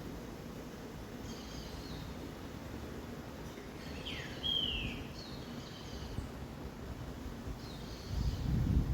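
A small bird singing short high chirping phrases about every two seconds, with one louder slurred whistle about four seconds in, over a steady low background rumble. A louder low rumble swells near the end.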